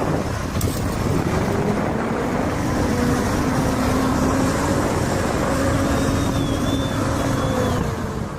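A vehicle engine running loudly, its pitch climbing over the first couple of seconds and then holding steady before easing off near the end.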